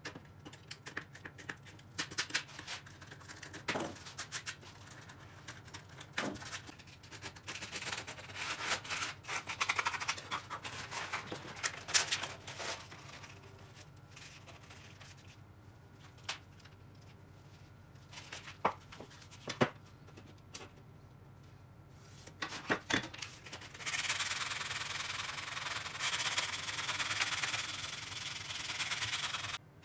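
Utility knife scoring and cutting a stiff cloth-backed 60-grit sanding belt, with scattered clicks and scratchy strokes and the rustle of the belt being flexed. Near the end comes one long, steady scratchy cut lasting several seconds.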